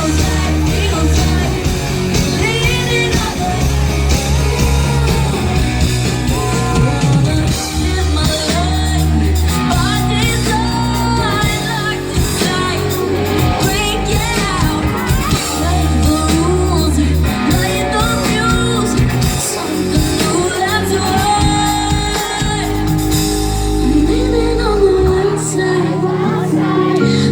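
Live pop song performed by a female singer with a band, with a steady, heavy bass line under the vocal.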